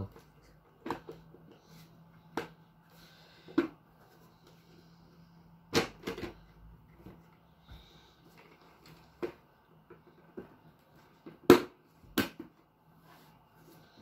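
Irregular knocks and clicks of an arcade stick case being handled, turned over and its cover pressed back into place, about a dozen in all, the loudest about eleven and a half seconds in, over a faint steady hum.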